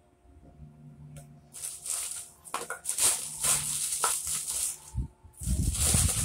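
Plastic snack wrappers and packets crinkling and rustling as grocery items are handled and sorted, starting about a second and a half in, with heavier handling knocks near the end.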